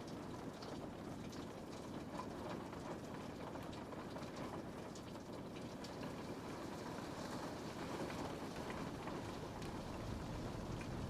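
Steady rain falling on a window pane, with many small drops ticking on the glass over a soft, even hiss. A low rumble comes up near the end.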